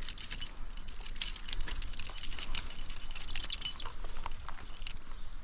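Fishing reel being cranked to bring in a small hooked brook trout, giving rapid, irregular metallic clicks and ticks that stop about five seconds in.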